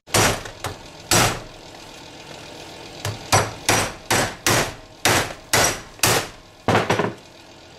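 Hammer striking the plastic shell of a landline telephone handset to crack it open: three sharp blows, a pause of about two seconds, then a run of about ten more, roughly two to three a second.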